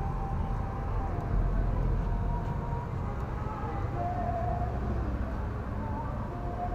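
Steady low street noise with a traffic rumble, and faint voices now and then.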